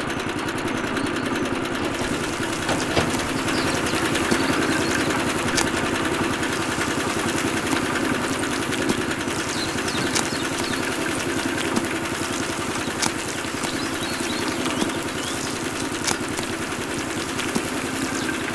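Small motor running steadily, with a few sharp clicks scattered through it.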